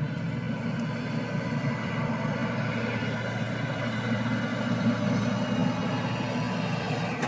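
Truck's diesel engine running steadily, heard from the cab with the door open.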